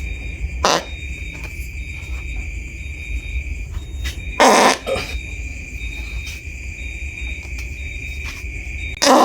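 Farts: a short one about a second in, a louder one of about half a second near the middle, and another loud, longer one starting near the end. A steady high-pitched tone and a low rumble run underneath.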